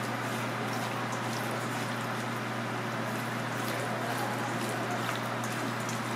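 Hand squishing and turning wet seasoned pieces in a stainless steel bowl, a run of small wet clicks and squelches. Under it, a steady machine hum.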